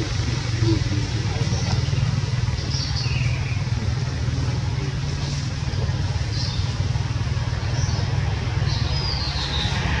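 Steady low mechanical rumble, like a running engine or traffic, with a few short, faint high chirps scattered through it.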